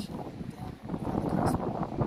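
Wind buffeting the microphone: a rough, gusting rumble that rises and falls.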